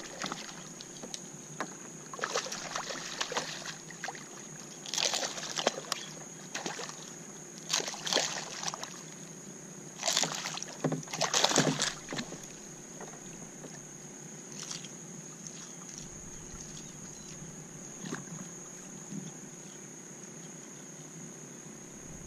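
Water lapping against a fishing kayak's hull, broken by several louder rustling stretches, the loudest about ten to twelve seconds in, over a steady high-pitched whine.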